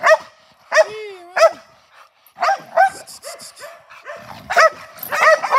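A dog barking repeatedly in short, sharp barks, some coming in quick pairs, with a brief wavering whine about a second in.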